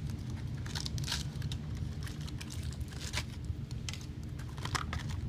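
Aluminum foil crinkling and crackling irregularly as it is peeled and cut away from the underside of a die-cast toy car, over a steady low hum.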